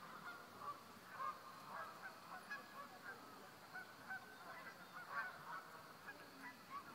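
Faint, continuous honking of a flock of geese, many short calls overlapping.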